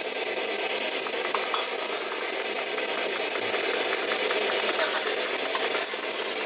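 PSB7 spirit box and a hacked RadioShack radio sweeping through radio stations: a steady hiss of static with faint quick clicks.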